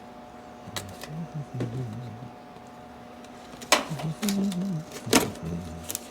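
Three sharp clicks or knocks of handling, with low muttering between them over a steady electrical hum.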